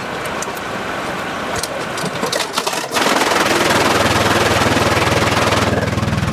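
Sawmill machinery: scattered knocks and clatter, then about three seconds in a loud machine suddenly starts running with a fast, even rattle and a low hum.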